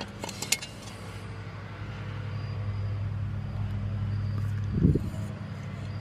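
A steady low mechanical hum, like a motor or engine running, slowly growing louder. A few light metal clicks about half a second in as the rusted water-heater burner is handled, and a short loud bump a little before the end.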